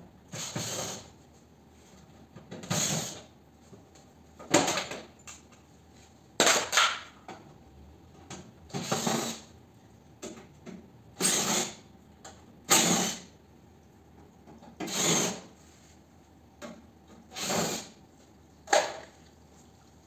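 Cordless drill/driver run in about ten short bursts, roughly two seconds apart, backing out the screws of an air-conditioner outdoor unit's sheet-metal casing.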